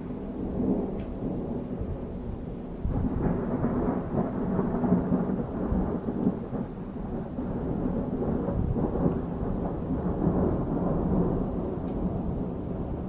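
Rolling thunder after a nearby lightning strike: a long low rumble that builds about three seconds in and keeps rolling in uneven surges.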